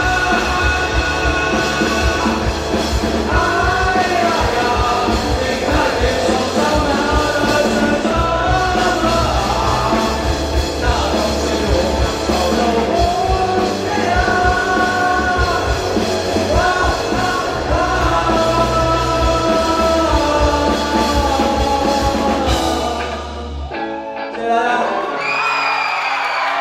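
Live rock band with a singer: drums, bass, guitars and vocals playing steadily. About 23 seconds in the band stops, and near the end yelling voices rise from the crowd.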